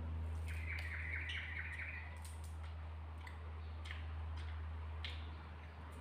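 A small bird chirping: a quick trill of about a dozen repeated notes, lasting a second and a half, about half a second in. Under it runs a steady low hum, with a few scattered faint clicks.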